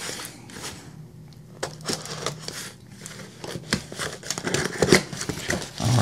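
Packing tape on a cardboard shipping box being cut with a knife and the box flaps pulled open, in a run of irregular scrapes, taps and crinkles, with a sharper crack about five seconds in.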